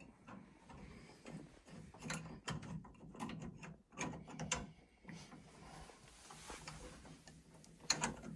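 Light, irregular metallic clicks and scrapes as a brass power-flush adaptor with a plastic camlock connector is handled and screwed by hand onto a central heating pump valve. A denser run of clicks comes near the end.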